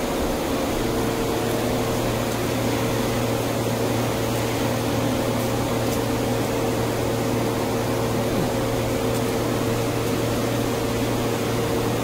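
Steady hum and rushing noise of a glassblowing hot shop's burners and blowers, running evenly throughout.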